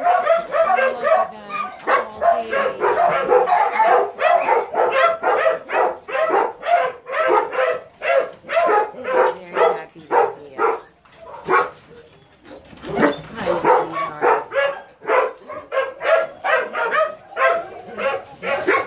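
Several kennelled dogs barking nonstop, their barks fast and overlapping, with a brief lull about two-thirds of the way through.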